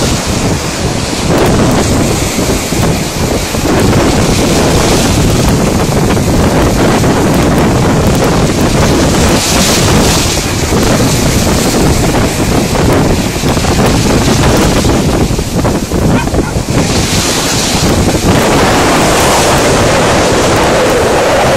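Sea waves breaking and washing through shallow surf, with heavy wind buffeting the microphone. The rush of surf becomes steadier near the end.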